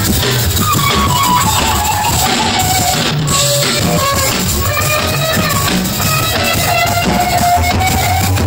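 Live band playing, with drum kit and guitar; a melody line slides and bends in pitch over a steady beat.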